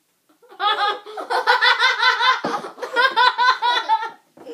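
Children laughing hard: a long run of quick repeated "ha" sounds starting about half a second in, with a brief break just after two seconds, then a second run that dies away near the end.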